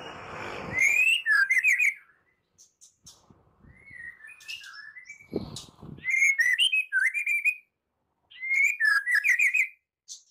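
White-rumped shama singing in three bouts of loud whistled notes mixed with fast, rough chattering trills, with short silent gaps between bouts. A low noisy sound comes under the song at the start and again about five seconds in.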